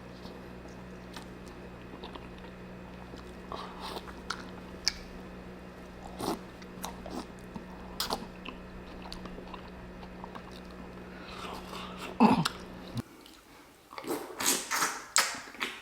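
Close-up eating sounds of seafood boil: chewing and biting with scattered sharp clicks, over a steady low hum. The hum stops abruptly near the end, and louder, denser chewing and mouth noises follow.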